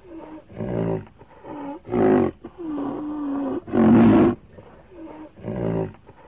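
Rhinoceros calls: a run of short, deep, pitched calls about once a second, with one longer call held at a steady pitch about three seconds in.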